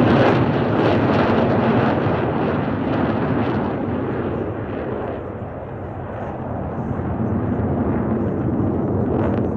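Blue Angels demonstration aircraft flying past, a loud rushing engine noise that is strongest at the start, fades over about five seconds, then swells a little again.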